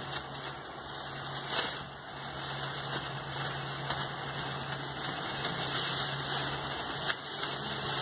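Mondial NV-15 6P 30 cm desk fan running at top speed (setting 3): a steady motor hum under a rush of air. A plastic bag held in front of it rustles and crinkles in the draught, with a sharper crinkle about one and a half seconds in and again near the end.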